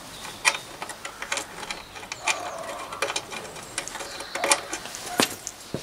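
Irregular metallic clicks and clinks of a hand tool tightening 10 mm nuts on threaded studding to hold a belt sander down.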